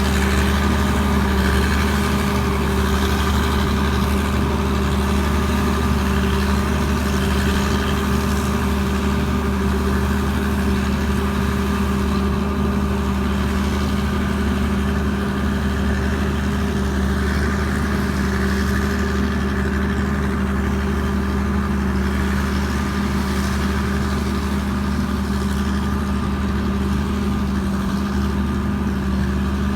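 Combine harvester's Hino J08C six-cylinder diesel engine running steadily at constant speed, with a deep even tone.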